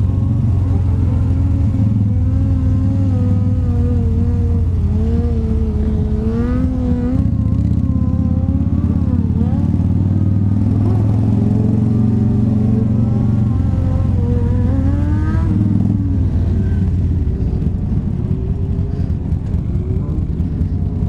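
Cruiser motorcycle engine running while riding, a steady low drone whose pitch wavers up and down with the throttle. About 17 seconds in it turns choppier and uneven as the bike slows toward an idle.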